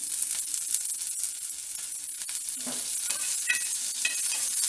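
Green chillies and curry leaves sizzling and crackling in hot oil with mustard seeds and cumin on an iron griddle, the sizzle flaring up as they go in. A metal spoon stirs them across the pan.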